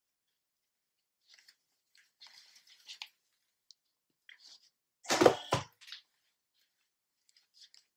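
Cloth rustling and brushing close to the microphone: faint rustles, then a loud scrape-and-crackle about five seconds in lasting about half a second.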